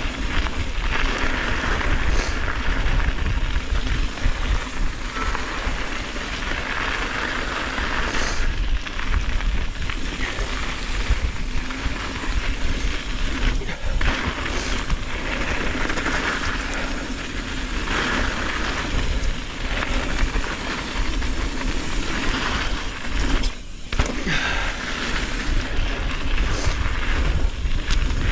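Mountain bike rolling steadily along a packed dirt-and-gravel trail: continuous tyre noise with wind rumbling on the action camera's microphone, and a few short rattles from bumps.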